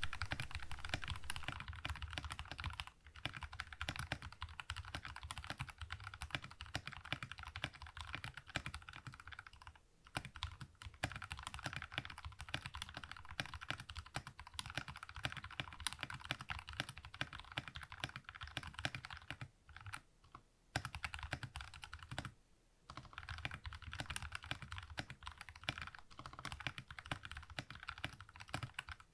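Typing on a Redragon K530 Draconic 60% mechanical keyboard with lubed Kailh Brown tactile switches: a rapid, steady run of keystroke clacks, broken by a few short pauses.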